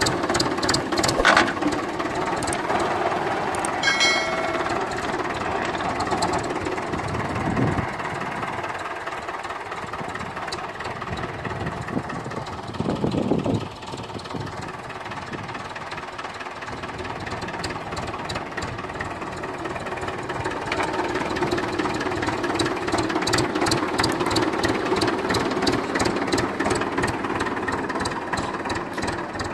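Mahindra 575 DI tractor's four-cylinder diesel engine running steadily as the tractor is driven at low speed, easing off for a few seconds past the middle before picking up again.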